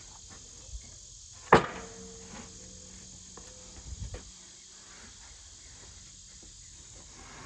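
A single sharp clank about a second and a half in that rings on briefly, then a few dull thumps around four seconds in, over insects chirring steadily.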